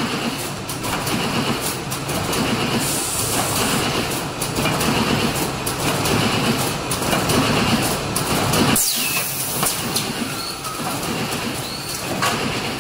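Fully automatic double-piece carton stitching machine running, with a steady mechanical clatter and frequent sharp clicks. A brief hiss comes about nine seconds in.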